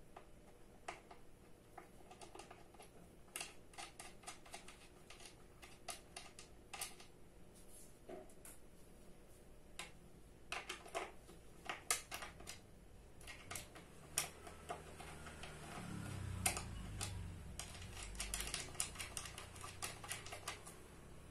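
Irregular light clicks and taps of screws and metal chair parts being handled during office chair assembly. In the last third a low rubbing rumble of the chair being shifted joins the clicking.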